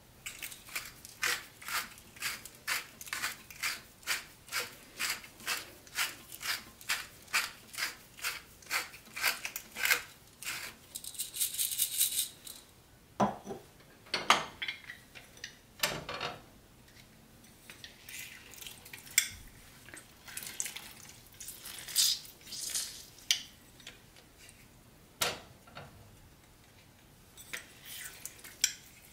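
Hand seasoning grinder twisted in even, rhythmic strokes, about two or three a second, for some ten seconds. After that come scattered clicks and knocks of kitchen utensils.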